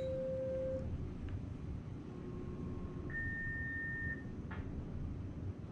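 Low steady room noise, with faint held electronic-sounding tones at several pitches, one after another, and a single short click about four and a half seconds in.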